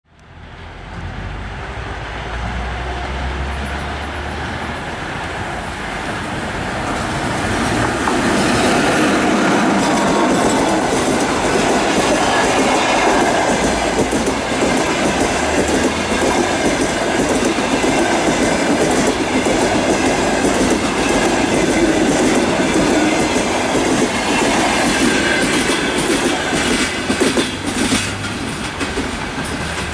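Express passenger train hauled by a ChS2K electric locomotive passing close at speed: a steady rumble of wheels on rail that swells from the start and grows louder about eight seconds in as the coaches go by. Near the end, sharp clickety-clack as the last wheels cross the rail joints.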